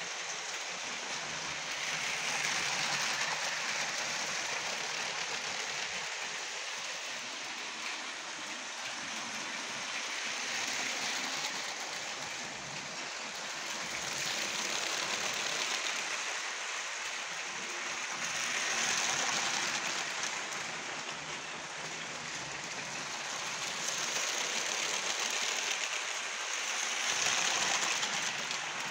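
Lego train running on plastic track: a continuous rattling whir of its motor and wheels that swells and fades every few seconds as the train comes nearer and moves away.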